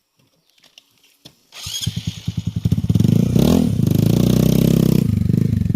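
A motorcycle engine starting: a few clicks, then it catches about a second and a half in with rapid even firing pulses, revs briefly up and down around three and a half seconds in, and settles into steady running.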